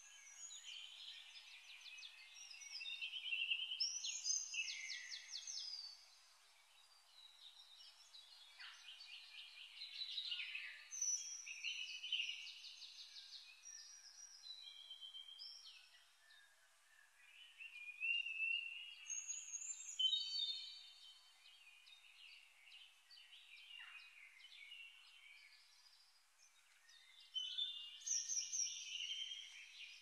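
Songbirds singing: overlapping phrases of quick trills, chirps and short whistles that come and go in bursts.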